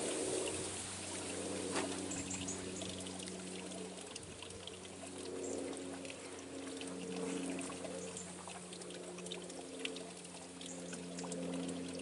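Water pouring and trickling steadily.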